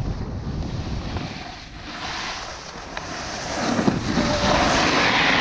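Wind rushing over the microphone mixed with the scrape of a snowboard carving across packed snow, getting louder over the last couple of seconds.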